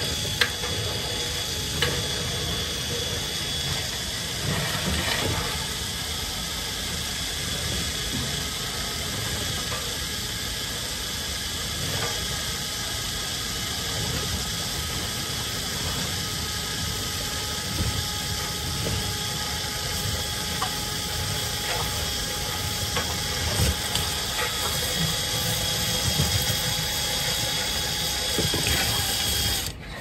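Cordless drill spinning a flexible rotary brush rod inside a dryer vent duct, scouring out lint. A steady motor whine with a rushing hiss and a few sharp knocks, cutting off suddenly near the end.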